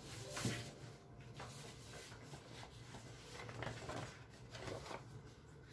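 Faint rustling and sliding of paper sheets being picked up and handled, a few soft separate rustles.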